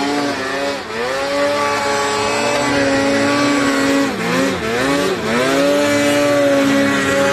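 Snowmobile engine revving hard, held at high revs, with the throttle briefly chopped and reopened about a second in and again around four to five seconds in, the pitch dropping and climbing back each time.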